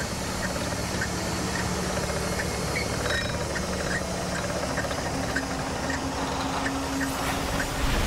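A fishing boat's engine and pot-hauling winch run with a steady mechanical hum while a crab pot is winched up out of the water. A low steady tone joins about five seconds in.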